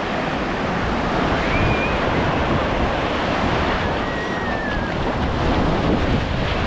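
Black Sea surf washing in steadily, mixed with wind buffeting the microphone.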